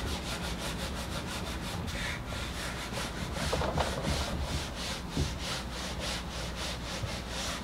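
Whiteboard eraser rubbing across a whiteboard in quick, repeated wiping strokes.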